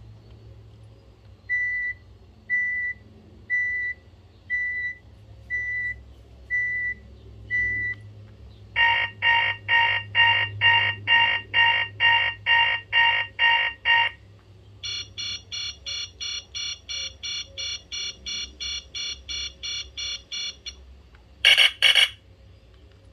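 BlackBerry 8820 playing a series of its built-in alert tones through its speaker. First comes a slow run of seven short single beeps, about one a second. Then a louder, faster pulsing tone of about a dozen pulses, then a rapid high-pitched beeping, and a brief bright chime near the end.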